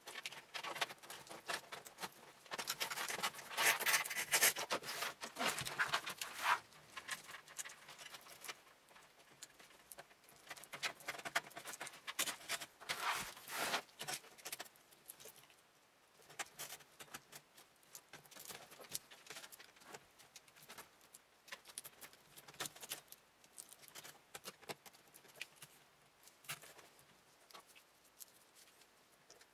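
Hands routing cables inside a PC case: irregular scraping, rustling and clicking of cables and plastic against the case. It is busiest in the first six seconds and again around twelve to fourteen seconds in, then thins to scattered clicks.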